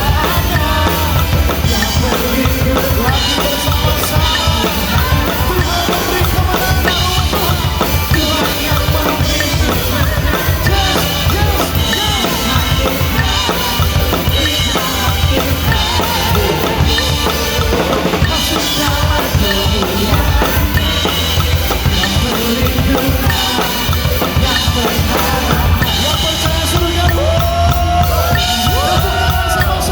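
Drum kit played at a fast 190 bpm, bass drum, snare and cymbals hitting densely, over the song's backing track, whose melody line comes through more clearly near the end.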